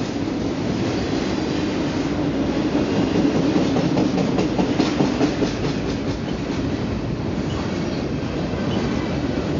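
Double-stack container freight cars rolling past close by: a steady rumble with the wheels clacking over the rail joints, the clacks coming thickest in the middle.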